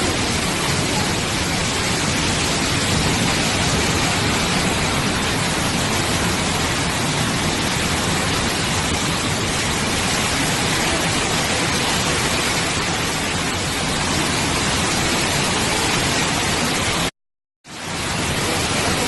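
Floodwater of an overflowing waterfall rushing, a loud steady wash of noise. The sound drops out completely for about half a second near the end, then returns.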